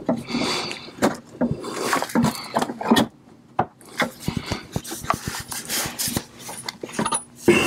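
Steel pry bar levering and scraping at the joint between a Perkins 4-108 marine diesel's bellhousing and its transmission, with irregular metal clicks and knocks. The transmission is stuck fast on a stud and won't slide off.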